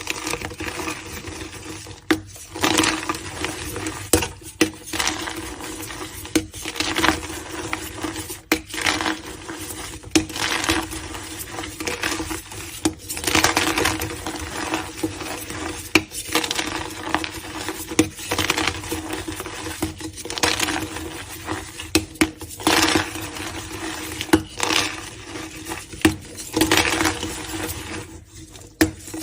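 Blocks of gym chalk being crushed, crunching and crumbling in repeated bursts every second or two, each with sharp cracks.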